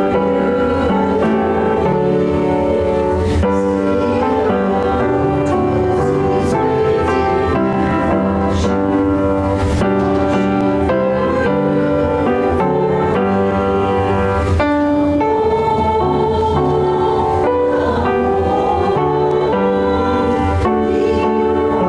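Instrumental music featuring piano.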